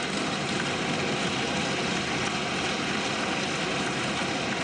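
A chamber full of parliament members cheering and thumping their desks in approval, a loud, steady din with no single voice standing out.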